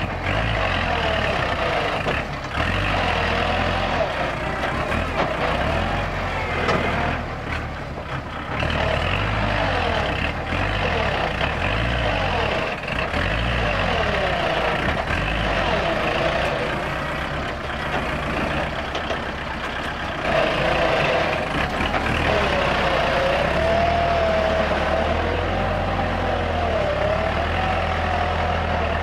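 Kubota L4708 tractor's diesel engine running under load while blading soil, with a whine whose pitch rises and falls as it works.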